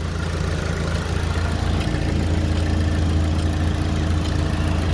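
Steady running hum from a car's engine bay with the electric radiator fan running, which the mechanic cannot yet explain. A steady higher hum joins about two seconds in.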